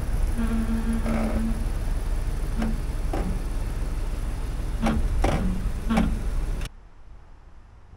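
Ford F-250 pickup's engine running low as the truck creeps up onto plastic leveling ramps in four-wheel-drive low. Several short squeaks and clicks come over the rumble, and the sound cuts off suddenly near the end.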